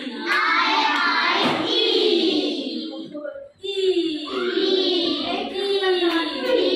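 A class of children reciting together in a sing-song chorus, in two long phrases with a short break about halfway through.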